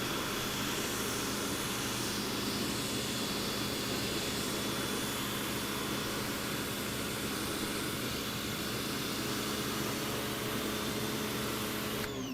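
Certified 1800 PSI brushed electric pressure washer running under load: a steady motor and pump hum with the hiss of the spray through a 15-degree nozzle. It cuts off sharply near the end as the trigger is released.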